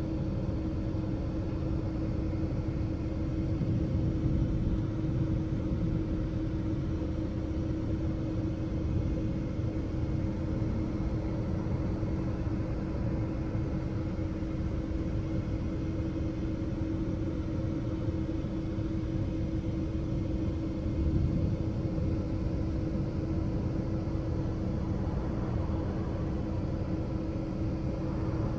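A steady machine drone: a low rumble with a constant humming tone, starting suddenly and holding even.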